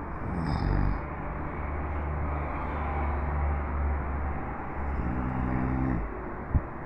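A man snoring: two low-pitched snores about four and a half seconds apart, over a steady low hum, with a short thump near the end.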